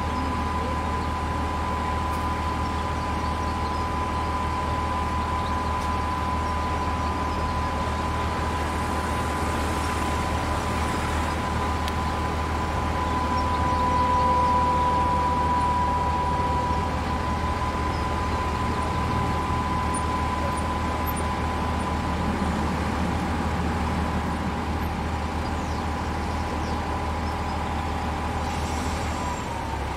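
Diesel engines of Krupp railway cranes running steadily under load while lifting a derailed S-Bahn car, with a constant low hum and a steady whine that grows louder for a few seconds about halfway through.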